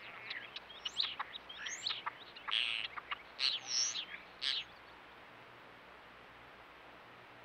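Spotless starling singing: a quick run of varied whistles, chirps and harsh rasping notes, which stops about four and a half seconds in.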